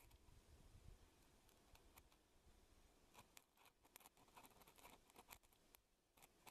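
Near silence, broken by faint small clicks and light scraping from about three seconds in, as a steel engine valve is handled and turned over on a workbench mat.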